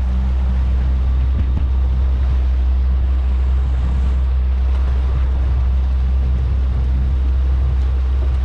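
Outboard motor of a small open fishing boat running steadily under way, a constant low hum, with the rush of the wake and wind.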